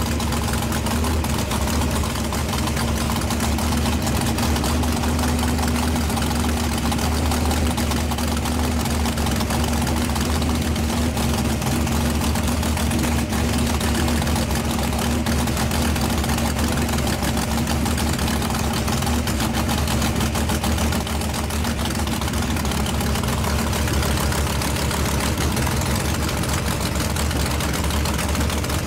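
Fuel altered drag car's nitro-burning injected V8 idling through open headers: a steady, loud cackle.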